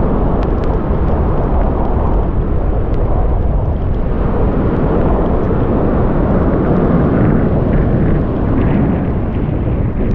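Strong sea wind buffeting the microphone, a steady, loud low rumble.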